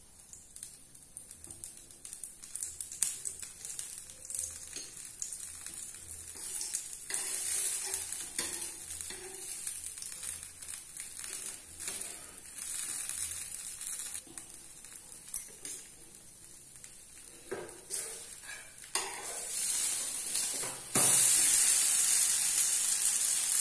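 Dosa batter sizzling on a hot tawa, with a spatula scraping and clicking against the pan. About 21 seconds in the sizzle turns suddenly much louder as the pancake is turned over onto the oiled pan.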